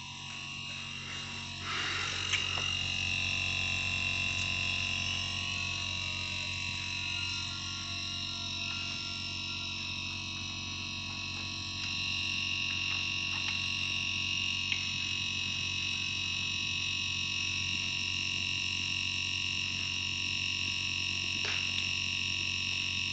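LG inverter air conditioner's compressor running during a pump-down: a steady hum with a high-pitched whine on top. It gets a little louder about two seconds in and again about halfway through.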